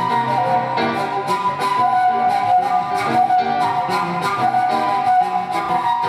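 Long flute playing held notes over Petrof grand piano chords and runs, the flute moving from a high held note down to a lower one about two seconds in.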